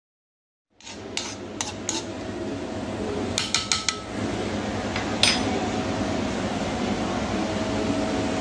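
Squid in turmeric liquid sizzling in a stainless steel wok, a steady hiss that starts abruptly just under a second in. Sharp metal clinks against the wok break through it: a few early on, a quick run of them about three and a half seconds in, and one more at about five seconds.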